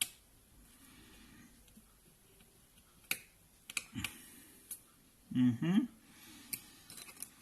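Scattered small clicks and taps as tiny screws and small hand tools are handled on a work surface during iPad mini disassembly. A brief hum from the person comes about halfway through.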